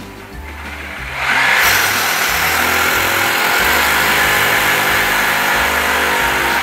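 Rotary hammer drilling into a cement wall, widening an existing hole; it starts about a second in and runs steadily at full speed.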